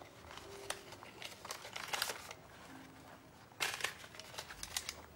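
Paper rustling and crinkling as a purchase is handled at a shop counter, with a few sharper clicks and knocks about three and a half seconds in.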